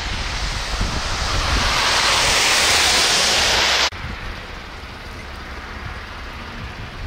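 Outdoor noise of wind and traffic on slushy snow-covered streets: a rushing hiss swells over the first two seconds, cuts off suddenly about four seconds in, and gives way to a softer steady hiss over a low rumble.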